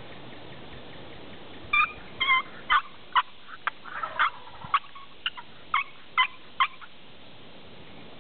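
Wild turkey calling: a run of about a dozen short, sharp notes, roughly two a second, starting about two seconds in and stopping near seven seconds.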